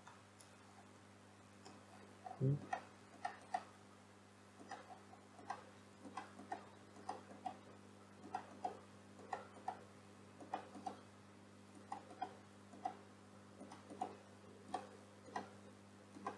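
Computer mouse buttons and keyboard keys clicking irregularly, about two clicks a second, over a steady low electrical hum. A louder thump comes about two and a half seconds in.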